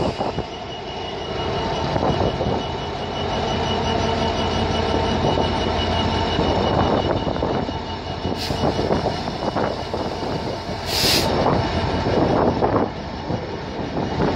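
DB Cargo Class 66 diesel locomotive passing close by, its two-stroke V12 engine running with a steady throb. From about halfway, wheels clicking over the track as the covered steel wagons follow, with two short hisses near the end.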